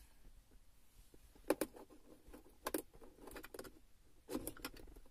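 Small clicks and knocks in a few short clusters: a car's 12 V accessory socket cover being opened and a boAt dual-USB car charger pushed into the socket.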